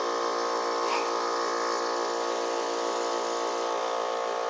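Lennox air conditioner condensing unit giving off a steady electrical buzz while its condenser fan stays stalled, which the owner suspects is a bad capacitor.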